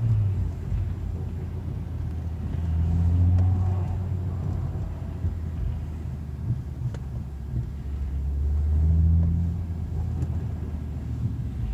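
BMW M235i making a low drone that swells and fades twice, about three seconds in and again near nine seconds: the weird sound the owner is trying to pin down.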